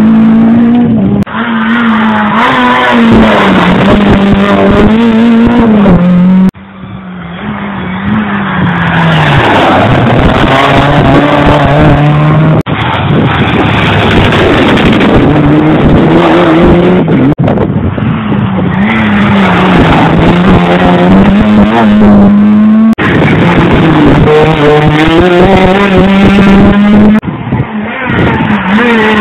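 Rally car engines, one car after another, one of them a Mitsubishi Lancer Evolution, passing close, revving up and dropping back through gear changes. The sound breaks off abruptly every few seconds where separate passes are cut together.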